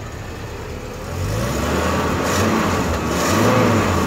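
1986 Alfa Romeo Spider Veloce's 2-litre twin-cam four-cylinder running just after a cold start, revved up and let back down twice, sounding real good.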